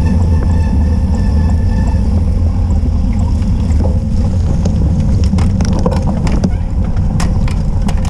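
Steady low rumble of wind and vibration on a rider-mounted camera as a cyclocross bike rolls over cobblestones and then onto a dirt track. Sharp rattling clicks from the bike come in the second half.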